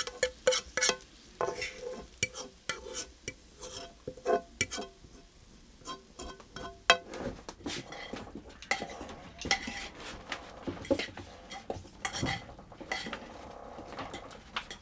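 A utensil stirring and scraping in a cooking pot, with many sharp clinks and knocks, some of them ringing briefly.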